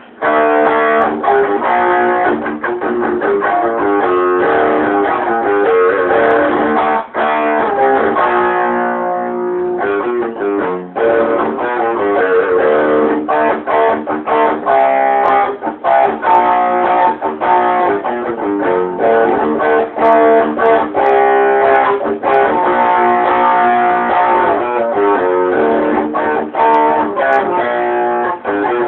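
Electric guitar played through an amplifier: a steady run of picked notes and chords that starts abruptly and keeps going.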